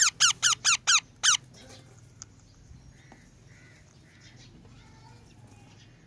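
A parrot gives six quick, loud, high-pitched calls in a row, about four a second, each falling in pitch, then goes quiet apart from a few faint soft chirps.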